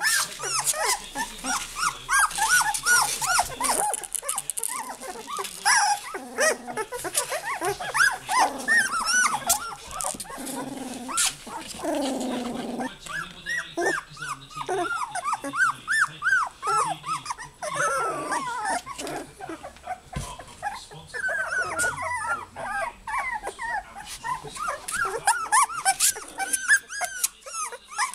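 A litter of young goldendoodle puppies crying and whining together, many short high-pitched overlapping calls without a break, with a few lower, longer cries near the middle: the pups calling for their absent mother.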